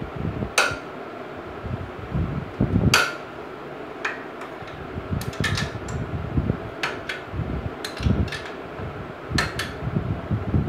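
Metal clinks of a long steel socket bar working the rear axle nut of a Yamaha YBR motorcycle: two loud ringing clanks in the first three seconds, then a run of lighter ticks and clicks with dull knocks.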